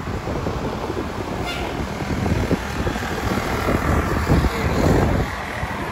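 Road traffic passing on the highway below, with wind buffeting the microphone in uneven gusts.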